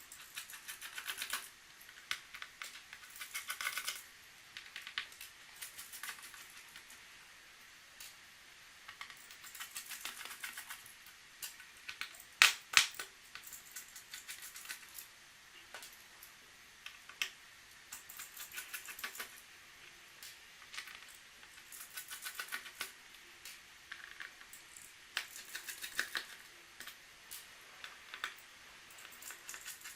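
Small screwdriver turning out the screws of a Dell Inspiron 13 7368's aluminium base cover: repeated short runs of rapid clicking, each a second or two long, with a few sharper clicks about halfway through.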